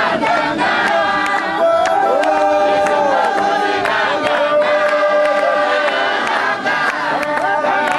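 Apostolic church congregation singing a hymn together in many voices, with hand claps.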